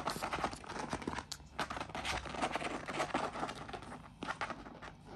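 Young African grey parrots scuffling and playing on a laminate floor: claws tapping and scratching, beaks nibbling at a small toy. It is a busy run of quick clicks and rustles that thins out near the end.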